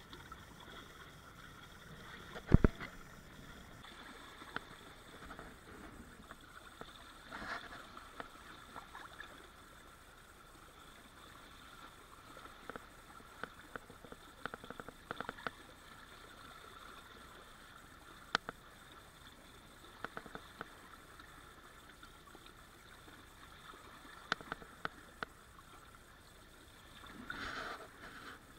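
Water rushing and splashing along the inflatable hulls of a Minicat Guppy catamaran sailing through a light chop, with scattered sharp clicks and knocks from the boat, the loudest a heavy thump about two and a half seconds in.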